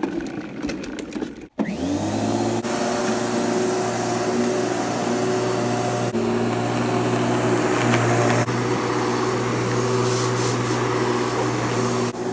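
Electric rotary lawnmower motor switching on about one and a half seconds in, spinning up quickly, then running steadily as the mower is pushed over the lawn.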